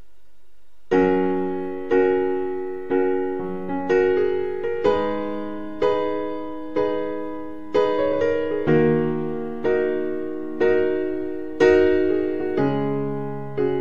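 Background piano music: slow chords struck about once a second, each fading before the next, starting about a second in after a faint hiss.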